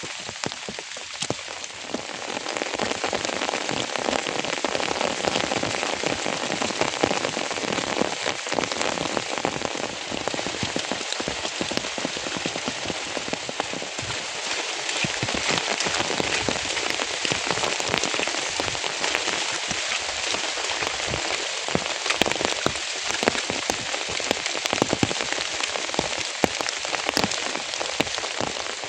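Rain falling steadily: a dense patter of drops with frequent sharper individual drop hits, growing a little heavier a couple of seconds in.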